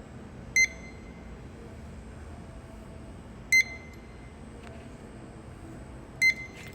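Electronic beeper sounding three short, high beeps about three seconds apart, over a steady background hum.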